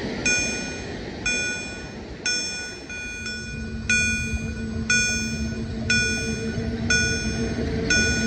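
Level-crossing warning bell ringing about once a second while the barriers are down. About three seconds in, a low steady hum comes in and grows louder as a train approaches.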